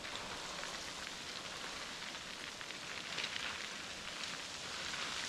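Steady rush of river water, an even hiss with faint patters through it.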